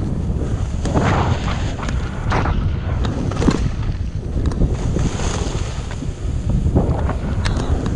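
Wind buffeting the microphone of a handheld camera while skiing downhill, with skis hissing and scraping over packed snow in swells as the skier turns.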